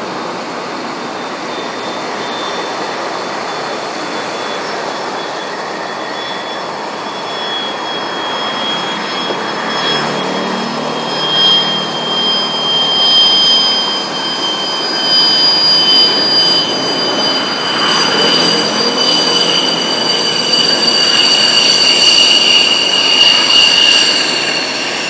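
Fighter jet's engine: a loud rushing roar with a high whine that slowly falls in pitch, growing louder in the second half.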